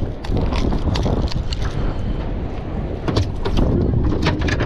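Wind rumbling on the microphone over sea water splashing, with scattered short sharp clicks and taps.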